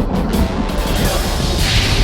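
Background music with a heavy low end, loud and continuous.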